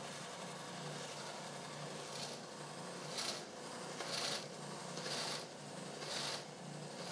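Ridgid oscillating edge belt/spindle sander running: a steady motor hum under a brighter hiss that swells and fades about once a second.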